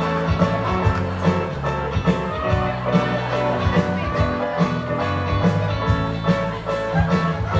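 Upbeat music with plucked guitar over a steady beat and bass line.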